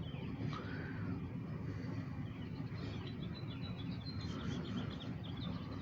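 Outdoor ambience: a steady low rumble with small birds chirping in quick short notes through the middle.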